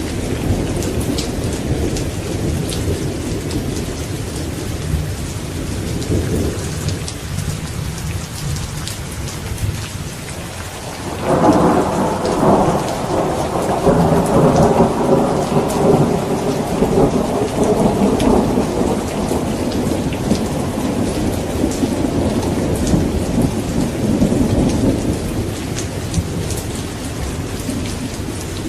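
Steady rain with a low rolling thunder. About a third of the way in, a louder thunderclap breaks out suddenly and rumbles on through most of the rest before fading.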